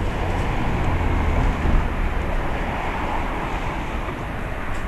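A boat's engine running steadily, a low rumble under a rushing noise.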